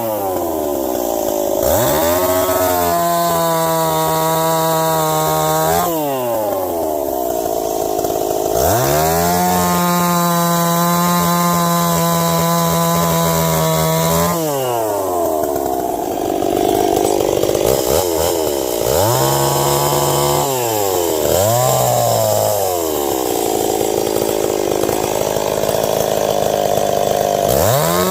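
Ported Stihl 026 two-stroke chainsaw cutting ash wood: it revs up to full throttle and holds there for several seconds at a time, drops back between cuts, then gives a few short revs.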